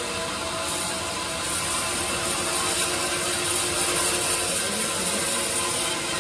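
Log bandsaw running and sawing lengthwise through a teak log as the carriage feeds it into the blade: a steady mechanical whir with several constant tones, swelling slightly through the middle of the cut.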